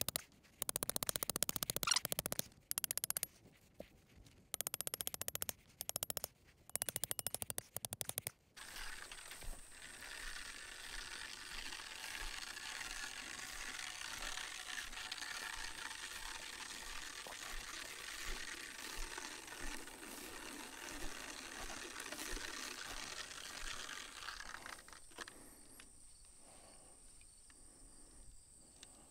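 Several bursts of rapid mechanical ratchet-like clicking over the first eight seconds or so. Then a steady hiss with a thin high insect-like trill, which fades down about 25 seconds in.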